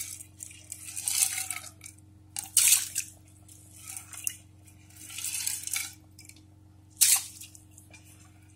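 Rice and vanpayar (brown cowpeas) being stirred and settled in water in an aluminium pressure cooker: a handful of short splashes and scrapes against the pot at irregular intervals. A faint steady hum runs underneath.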